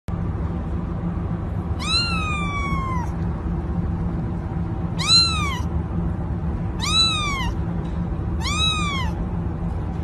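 Kitten meowing four times in high, arching calls, the first one long and drawn out and the other three shorter, over a steady low background hum.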